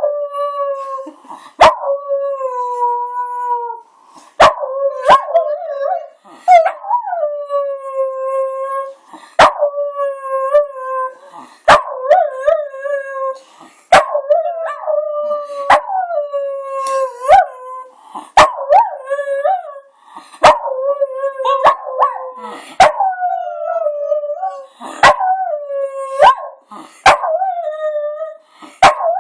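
Pet dog howling in a string of long, wavering notes of a second or two each. At times a person's voice howls along with it in a duet. Sharp clicks fall now and then between the notes.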